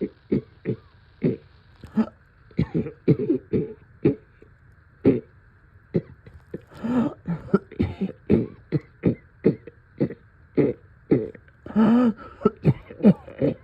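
A long run of short, sharp coughs and throat clearing, often two or three a second, with longer strained, voiced coughs about midway and near the end: a night-time coughing fit from deep chest congestion.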